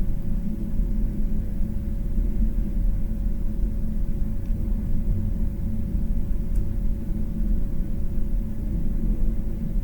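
Hot air rework station blowing steadily: a low rushing rumble with a faint steady whine, while it heats the CPU to reflow its solder balls onto the motherboard.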